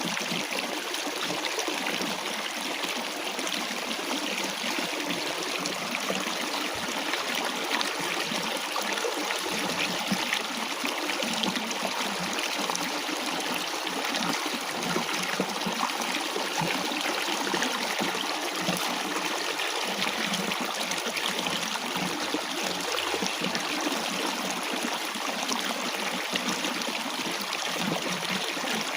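Stream of water flowing steadily, a continuous rushing and trickling over stones.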